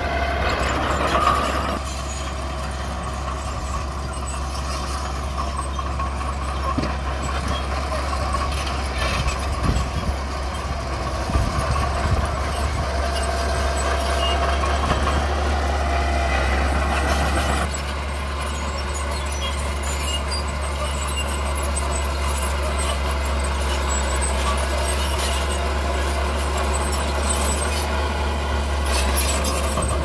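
Mini bulldozer engine running steadily under work, a constant low hum with machinery noise over it.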